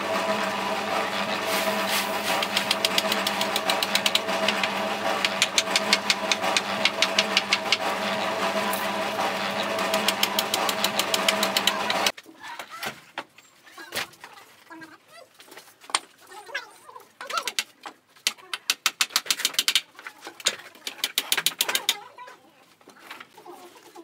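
A motor-driven machine running steadily with a fast, even ticking; it cuts off suddenly about halfway through. Then scattered light taps and short runs of rapid clicks follow.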